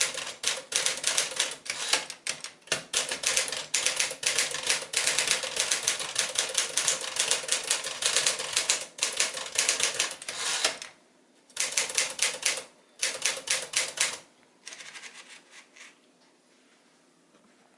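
1955 Smith-Corona Sterling manual typewriter being typed on: fast, steady clatter of keystrokes. The typing breaks off about two-thirds of the way through into a few short bursts and then faint clicks, and goes quiet near the end.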